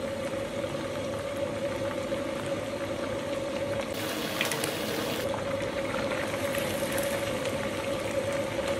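Bullfrog pieces deep-frying in a wok of hot oil: a steady bubbling sizzle as the fried pieces are scooped out with a wire strainer, over a steady hum.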